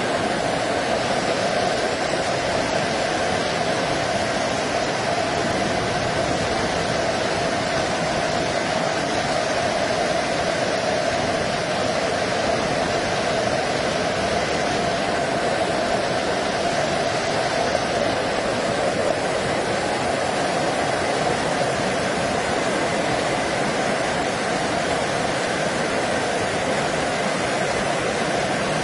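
Muddy flash-flood water rushing down a stone stairway and along a flooded street as a steady, unbroken torrent.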